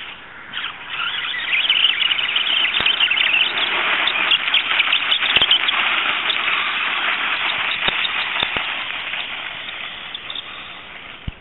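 R/C rock crawler climbing a loose dirt slope: a loud, high, noisy whine from its motor and drivetrain mixed with spinning tyres throwing dirt. A few sharp knocks come along the way, and the sound fades over the last couple of seconds.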